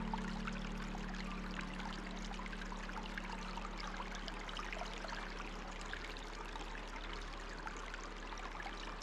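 Water trickling and pouring steadily, with a low steady hum underneath.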